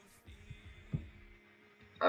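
Quiet room with a faint steady hum and two soft low thumps, the second, about a second in, the louder.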